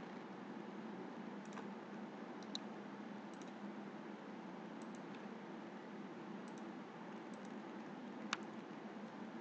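Scattered keystrokes and clicks on a computer keyboard, single and in quick pairs about once a second, the sharpest near the end, over a steady low background hiss and hum.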